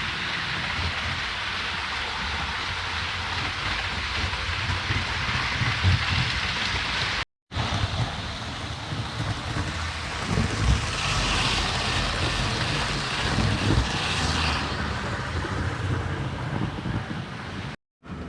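Model trains running on the layout's track: a steady rushing rumble, with a run of quick, regular clicks in the middle.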